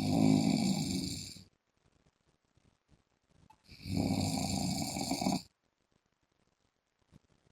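A man snoring, loud and very regular: one snore at the start and another about four seconds later, each lasting under two seconds, with near silence between them.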